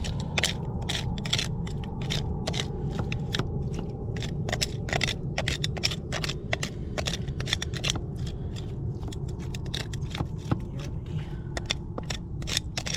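Rapid, irregular run of sharp scraping clicks, about three or four a second, from hand-tool work on the tap's pipework, over a steady low rumble.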